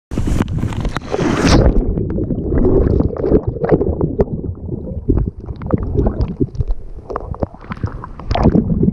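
Rushing stream water, loudest in a hiss during the first second and a half. After that, a dense low rumble with irregular knocks on the microphone.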